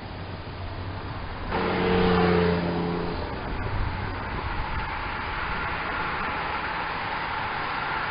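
A car and a motorbike pass close, their engine hum loudest about two seconds in and gone a second later, followed by the peloton of road bikes rushing past with a steady hiss of tyres on the road.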